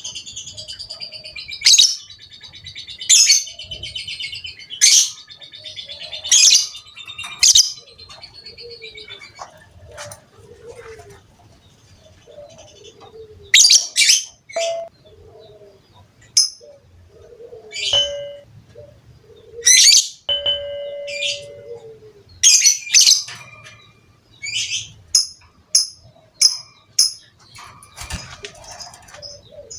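Lovebird calling: loud, shrill chirps one at a time or in short clusters every second or two, with soft lower notes between them. A dense chatter dies out just at the start, and the calls come faster near the end.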